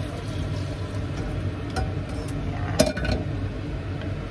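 Steady hum of a kitchen exhaust fan, with a sharp metal clank a little under three seconds in as a steel saucepan is set down on the stovetop, and a lighter knock of pot and spoon before it.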